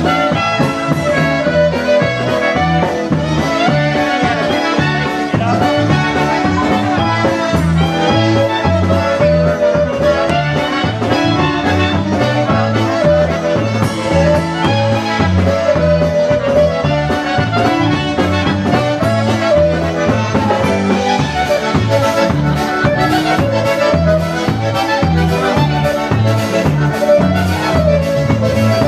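Live polka band playing an instrumental passage: accordion and brass carrying the melody over a steady two-beat bass.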